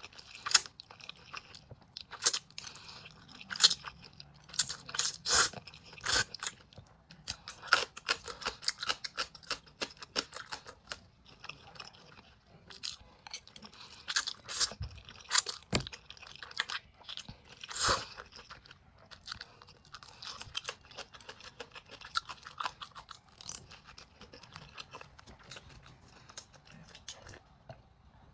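A person eating close to the microphone: chewing and biting food, with many irregular wet clicks and smacks of the mouth.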